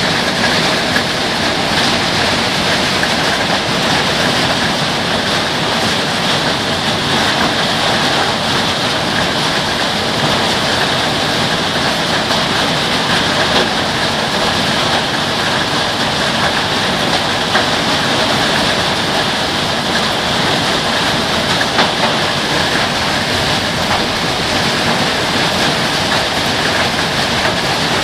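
Heavy rain and hail coming down hard: a loud, steady, dense hiss of downpour, with a few sharper ticks now and then.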